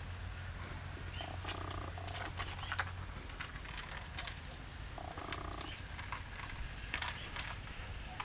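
Cats crunching dry kibble, with scattered sharp crunches over a low steady rumble. A short flat-pitched buzzing tone comes twice, about four seconds apart.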